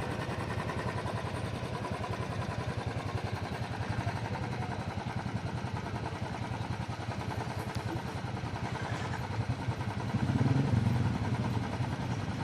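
A motorcycle engine running, with a rapid even pulsing and a louder swell of engine sound about ten seconds in.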